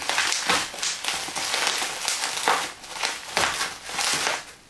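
Packaging crinkling and rustling in irregular bursts as a parcel is unwrapped by hand.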